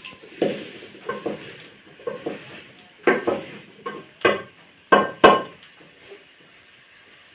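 A spoon stirring and scraping food in a cooking pot, a string of clattering knocks against the pot, loudest past the middle and dying away near the end.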